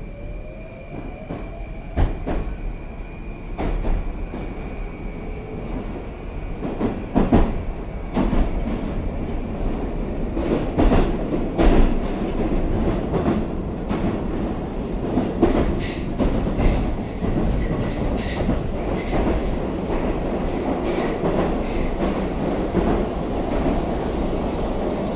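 Inside a moving 81-760 'Oka' metro train, heard from the car as it pulls away and gathers speed. A whine rises in pitch in the first couple of seconds, then the wheels clack over rail joints again and again as the running noise grows louder.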